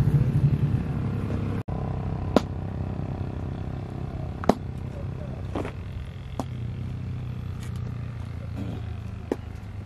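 A motor hums steadily and low, louder for the first second or so, with about five sharp clicks scattered through.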